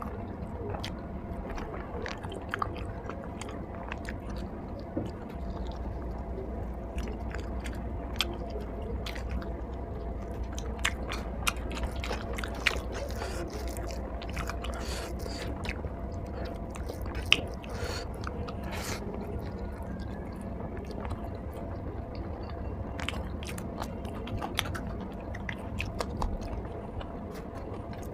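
Close-up eating sounds: chewing and biting with wet mouth clicks and smacks, scattered irregularly throughout, over a steady low hum.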